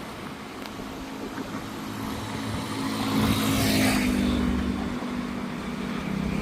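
A motor vehicle's engine running as it passes close by, loudest about three to four seconds in and then fading, over a steady background hiss.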